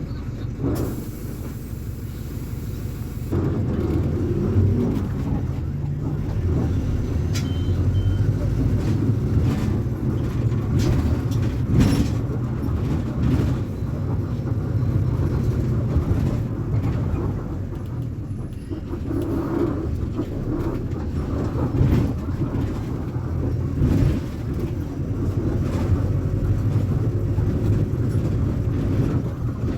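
Diesel engine of a VolksBus 9.160 OD midibus running under way, its note swelling and easing as the bus drives, with a few sharp knocks and rattles along the way.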